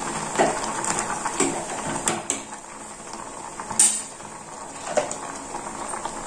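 Steel ladle clinking and scraping against an aluminium pot as drumstick-leaf sambar is stirred, then set down with a sharp clank on the stainless-steel stovetop about four seconds in. A steady hiss runs underneath.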